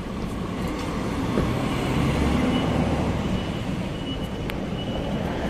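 Steady low background rumble, swelling a little in the middle, with a faint thin high tone and a single sharp click near the end.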